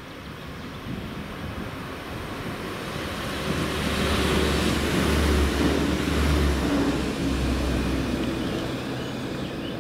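A diesel multiple-unit passenger train approaching and passing close by. Its low engine hum and running noise build to a peak around the middle, then fade as it moves away.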